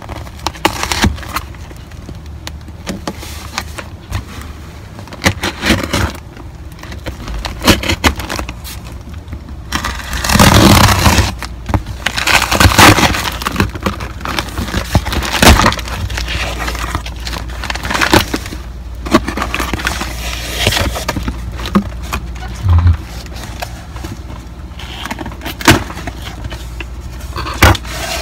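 A cardboard parcel being torn open by hand: packing tape and cardboard flaps ripping and scraping in irregular bursts, loudest around the middle.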